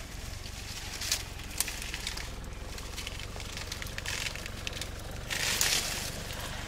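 African elephant browsing a bush, its trunk stripping leaves and breaking twigs: scattered sharp snaps and crackles, with a louder burst of rustling and cracking a little past the middle, over a steady low hum.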